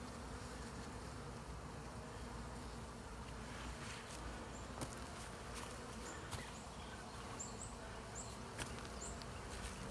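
Honey bees from a freshly installed package buzzing around an open hive: a steady low hum, with a few faint clicks midway.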